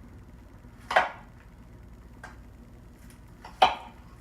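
Two sharp knocks of kitchenware against a hard surface, one about a second in and one near the end, with a couple of faint clicks between.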